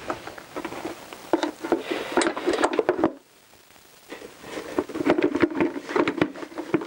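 Plastic airbox being worked by hand into a motorcycle frame: a busy run of clicks, knocks and scrapes as it bumps against the frame, cables and wiring, with a short quiet gap about three seconds in.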